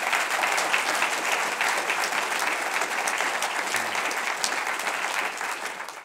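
Church congregation applauding, a steady dense clapping that tails off at the very end.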